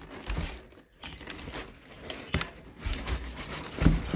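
Crumpled kraft packing paper rustling and crinkling as rubber bicycle tyres are handled inside a cardboard box, with scattered knocks and a louder thump near the end.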